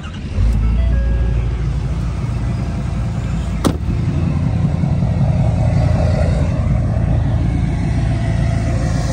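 Diesel pickup truck engine running with a deep, steady rumble that comes in abruptly about half a second in. A sharp click sounds near the middle, and a few short beeps in the first second.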